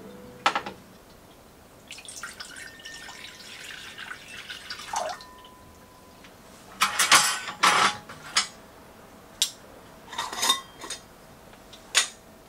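Kitchen sounds: water runs from a tap for about three seconds, then dishes and utensils clink and knock several times.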